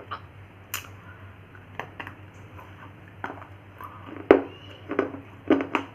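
Close-up crunching of a hard baked-clay 'Punjab ki mitti' biscuit: a run of separate crisp bites and chews. The loudest comes about four seconds in, followed by several more in quick succession near the end.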